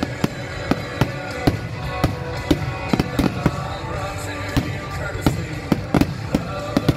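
Fireworks going off: a rapid, irregular series of sharp bangs, roughly two a second, over music.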